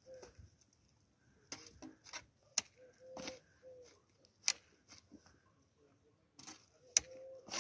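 A steel shovel digging and turning over garden soil: short scraping strokes as the blade goes in, with a few sharp clinks.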